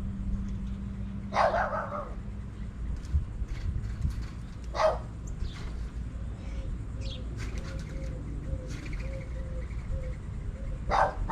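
A dog barking three times, spread out, with small birds chirping in between over a steady low rumble.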